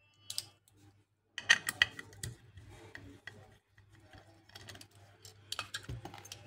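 Small screwdriver and hands working on the metal parts of an opened hard disk: light metal clicks, clinks and scrapes, loudest in a cluster about a second and a half in, then scattered lighter clicks.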